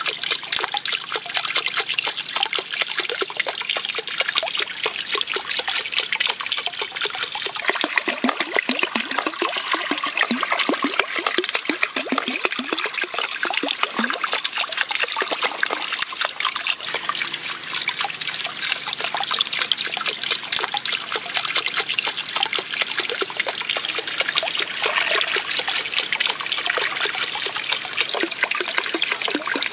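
Water spilling from a bamboo water wheel and trickling and splashing steadily into a small pond.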